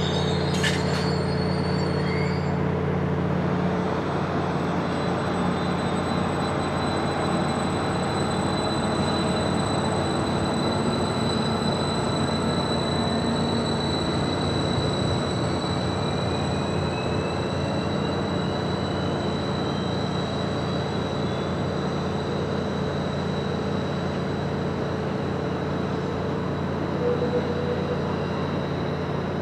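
Diesel multiple-unit passenger train running with a steady engine rumble and a steady high-pitched squeal. A fainter whine rises slowly in pitch in the first half. A short click sounds about half a second in.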